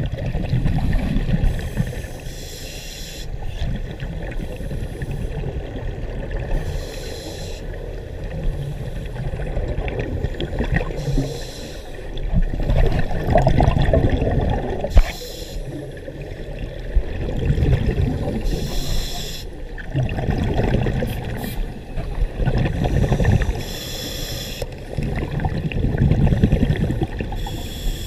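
Scuba diver breathing through a regulator underwater, muffled through the camera housing: a short hiss on each inhale and a low burbling rush of exhaled bubbles, repeating every few seconds.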